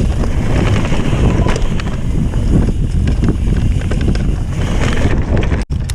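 Wind buffeting the microphone of a camera on a mountain bike riding fast down a dirt singletrack, with tyre rumble and scattered clicks and rattles from the bike. The sound cuts out for an instant near the end.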